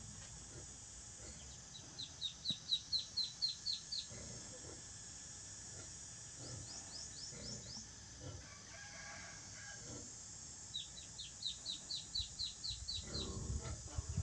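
Duckling peeping in three rapid runs of short, falling high notes, about four or five a second, a second or two per run.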